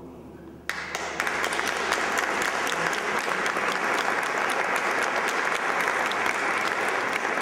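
Audience applause breaking out suddenly less than a second in, then continuing as steady clapping from many hands.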